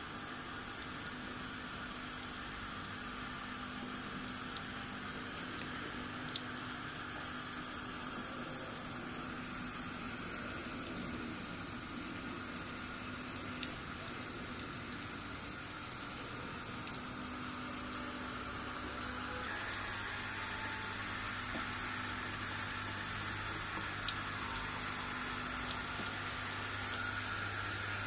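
Plecobot facade-cleaning robot at work on a glass curtain wall: a steady hiss of water spraying and running down the glass, with a low steady hum. The sound grows louder about two-thirds of the way through, when a deeper hum joins.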